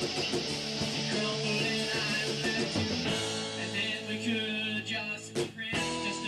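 A rock song with guitar, with a singing voice coming in about halfway through.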